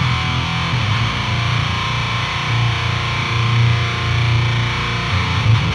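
Electric guitar played through the Otto Audio Blown Out Wall, an HM2-style chainsaw distortion plugin: a heavy, gross buzzsaw tone with a pronounced mid-range hump. The riff has a thick low end under it.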